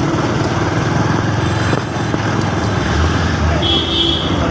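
Motorcycle riding along a road: steady engine and road noise with wind rushing over the microphone. A short high tone sounds for about half a second near the end.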